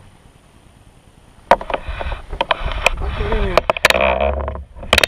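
A run of sharp knocks and clatter with a splashing rush, starting about one and a half seconds in and lasting about three seconds, as a hooked fish is brought alongside the kayak and landed.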